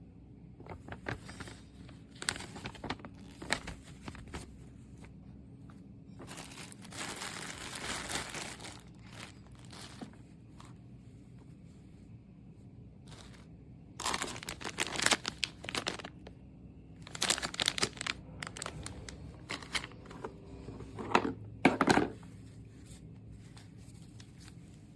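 Packaging being handled, crinkling and rustling in intermittent bursts with light clicks and knocks.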